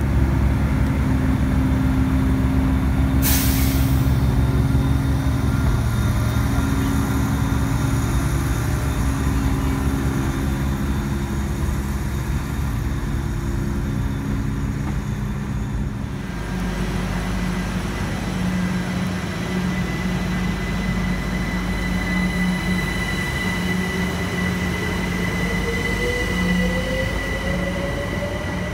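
Electric multiple-unit trains at a station platform. First comes a dense low rumble of a passing train, with a brief hiss about three seconds in. In the second half a Great Northern electric unit pulls away, its traction motors giving a whine that rises steadily in pitch over the last several seconds.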